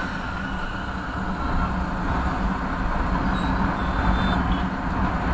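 Motorcycle running steadily while being ridden, its engine under a continuous low rumble of road and wind noise.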